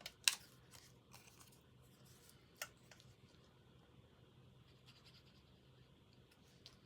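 Paper and craft supplies being handled on a tabletop: a sharp tap just after the start and another about two and a half seconds in, with faint paper scratching between them.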